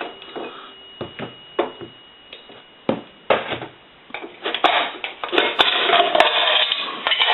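Knocks and clicks at the Northern Electric three-slot payphone's cash box as it is opened, then from about halfway a dense metallic clatter of coins jingling in the cash box.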